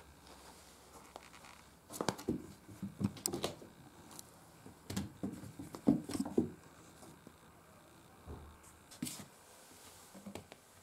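Irregular knocks and rustles in two clusters, about two and five seconds in, with a few lighter taps near the end: handling noise as the camera is moved about over the wooden floor.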